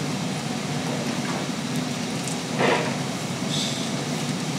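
Tohatsu V38CS portable fire pump's engine running steadily at a constant speed. A brief louder sound stands out a little past halfway.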